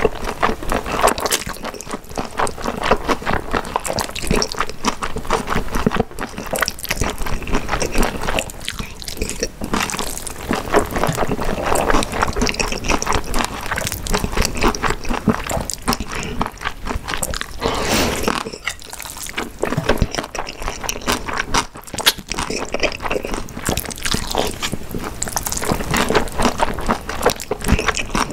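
Close-miked person eating: steady chewing and biting with many wet, crackling mouth clicks.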